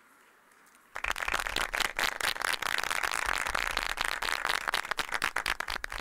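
Audience clapping, a dense patter of many hands, starting abruptly about a second in.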